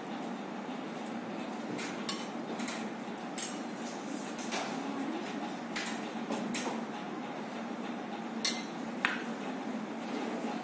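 Steel forceps and instruments clinking against stainless-steel bowls on an instrument tray: scattered light metallic clinks, about eight of them, over a steady room hum.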